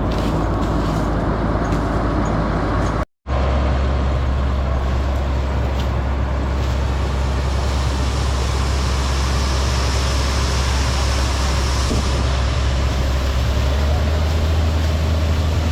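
Combine harvester's diesel engine running steadily under load, a heavy low drone with machinery noise over it. The sound cuts out for a moment about three seconds in and then carries on at a slightly different pitch.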